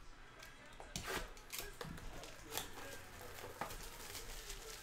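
Plastic shrink wrap being torn and peeled off a trading-card box, crinkling and crackling in irregular bursts, with the cardboard box handled.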